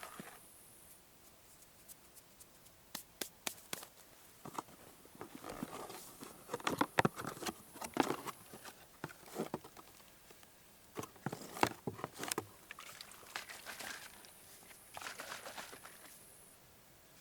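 Irregular clicks, knocks and rustling, in uneven clusters, loudest in the middle of the stretch, with a faint high-pitched tone that comes and goes.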